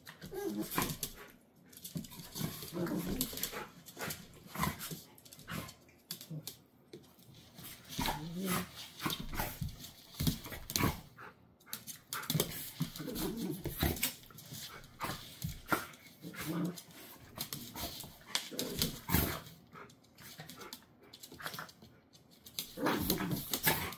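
Two dogs, a golden retriever and a small short-haired dog, play-wrestling: short low growls and barks come again and again throughout, mixed with scuffling and sharp clicks.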